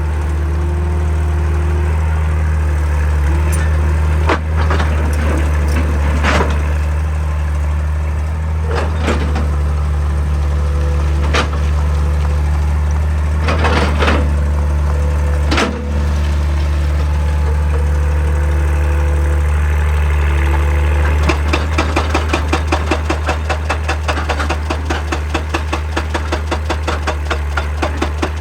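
Excavator's diesel engine running steadily, with a few scattered sharp knocks. About three-quarters of the way through, a hydraulic breaker starts a rapid, regular hammering on rock.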